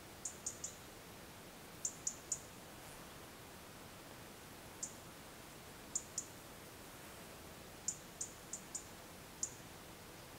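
Short, very high-pitched chirps from an unseen small animal, singly or in quick runs of two to five, over a faint steady hiss.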